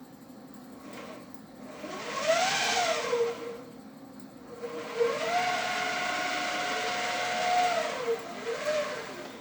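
Electric motor on a home-built CNC milling machine whining as it speeds up and slows down, over a constant lower hum. A short run comes about two seconds in; a longer one starts about five seconds in, holds a steady pitch, and winds down near the end.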